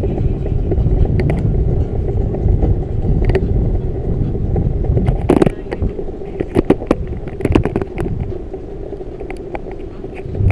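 Bicycle ride: steady low wind and road rumble with many sharp clicks and rattles, the rumble easing and the rattles coming thicker about halfway through.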